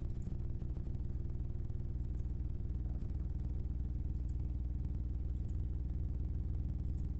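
Steady low hum with no change in pitch, with a few faint ticks every second or two.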